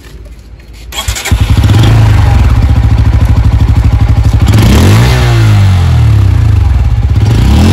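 Bajaj Pulsar N160 single-cylinder engine started about a second in and then running with a steady fast low pulse, heard close to its underbelly exhaust. It is revved briefly once around the middle.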